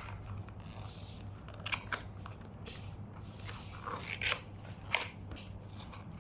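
Cardboard Happy Meal toy box and packaging being opened by hand: scattered short rustles and clicks.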